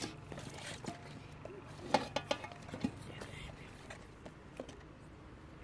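Knives cutting eggplant and squash over a metal bowl, with a handful of sharp clicks and taps about two to three seconds in.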